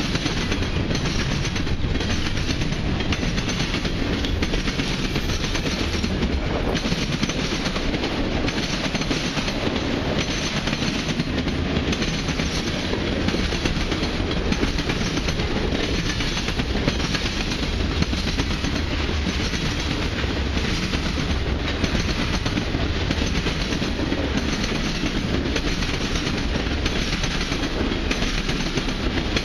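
Freight cars of a long mixed freight train rolling past at close range: steady noise of steel wheels running on the rails, with repeated clacks of wheels over the track.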